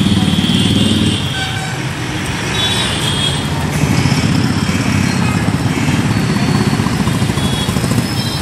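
Heavy road traffic: a lorry, motorcycles and auto-rickshaws driving past close by, their engines making a dense rumble, with short horn toots several times.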